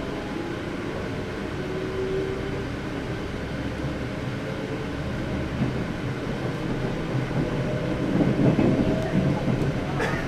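A train approaching on the rails: a steady hum and rumble that grows louder, loudest in the last two seconds.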